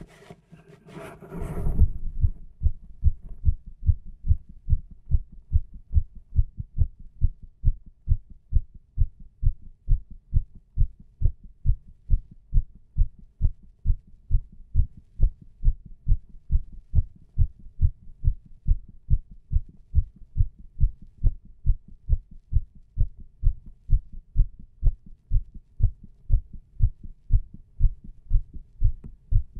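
Human heartbeat heard through a stethoscope chest piece pressed to the chest: steady, regular low thumps, one after another. A brief rustling noise comes in the first two seconds, before the beats settle in.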